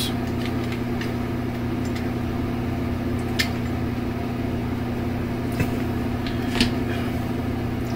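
Steady mechanical hum of a room appliance, even and unchanging. A few faint light clicks sound over it, from about three seconds in, as a small Bakelite razor and its case are handled.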